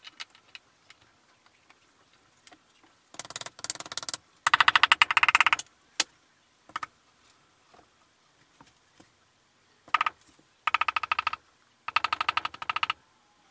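A mallet handle tapping pistons down through a ring compressor into the Subaru EJ25 block's cylinder bores, in rapid runs of taps: two longer runs about three to six seconds in and three shorter ones near the end.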